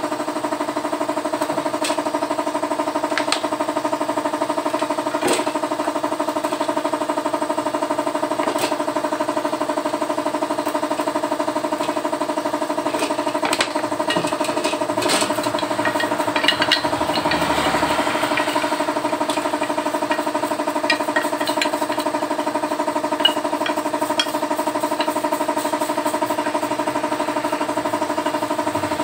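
A machine motor running steadily at one constant pitch throughout, with scattered clinks and brush scrubbing as a metal motorcycle engine cover is cleaned in a bucket of gasoline.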